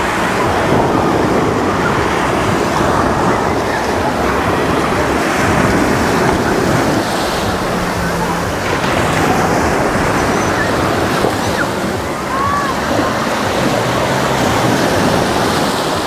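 Small sea waves breaking and washing up over a sandy beach at the water's edge, a steady churning wash of surf, with faint voices of bathers behind it.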